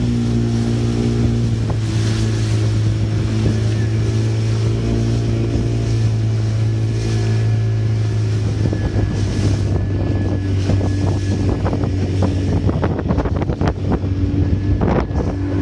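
Boat engine running steadily at a constant pitch. From about halfway through, gusty wind noise on the microphone joins it and grows rougher.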